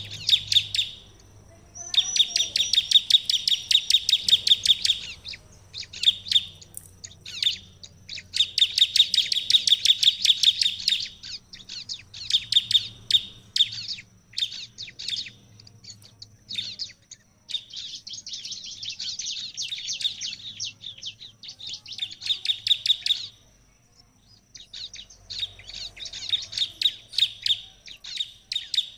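Bar-winged prinia (ciblek) singing in full voice: bouts of rapid, high, repeated chattering notes lasting from one to several seconds, separated by short pauses.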